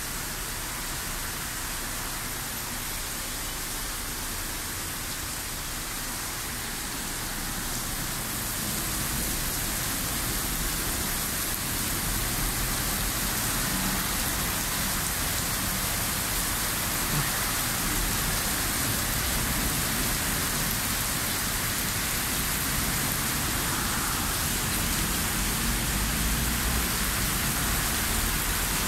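Heavy thunderstorm rain pouring down on the street, a steady hiss that grows louder about nine seconds in.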